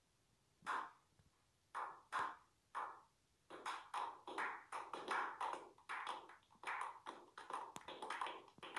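Slow clap: single hand claps spaced about half a second to a second apart, then speeding up into quicker clapping from several people from about three and a half seconds in.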